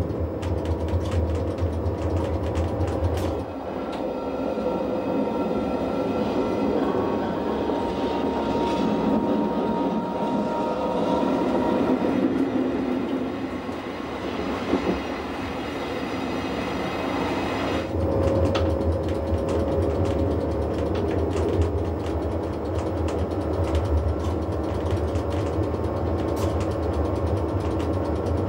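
Rhaetian Railway train running on the Bernina line, a steady rumble of wheels on rails with scattered clicks. A low hum fades out about three and a half seconds in and comes back at around eighteen seconds.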